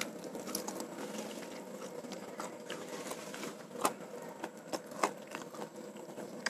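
Close-up chewing and mouth noises of a man eating chicken and rice with his hands, with a few short sharp clicks, the clearest about four and five seconds in.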